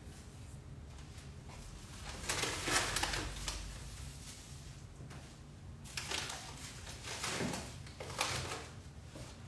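Faint rummaging and handling noises: things being shifted and shuffled in short spells, the longest a couple of seconds in. A low steady hum underneath.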